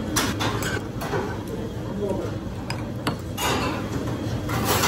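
Metal spoon clinking against a bowl and dishes several times as someone eats soup, over a low steady background hum.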